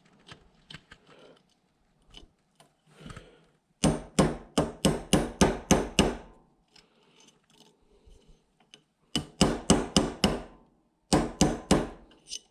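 Small hammer tapping a punch to drive the bolt catch roll pin into an AR-15 lower receiver: three runs of quick metallic taps, about four or five a second, with faint handling ticks between.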